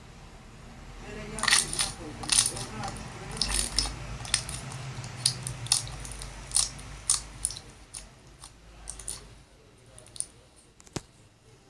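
Slime being worked by hand, making a run of sharp clicks and pops that thin out after about eight seconds.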